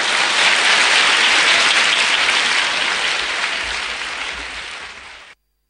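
Audience applauding the close of a crosstalk performance: the clapping swells, slowly dies down, and is cut off suddenly near the end as the recording stops.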